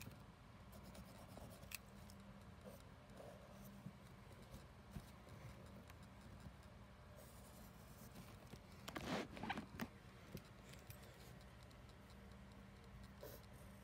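Black pen drawing on paper: faint strokes with a louder flurry of quick strokes about nine seconds in, over a low steady hum.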